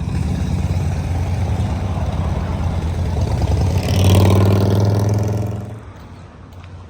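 A motor vehicle's engine running close by, growing louder about four seconds in and then fading away quickly as it passes.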